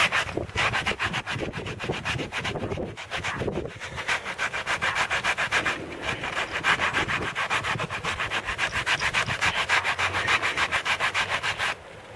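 Flexible sanding sponge rubbed rapidly back and forth over a hardened glass-filled epoxy repair on a chainsaw hand guard, in quick, even scraping strokes, several a second. The strokes pause briefly about halfway and stop shortly before the end.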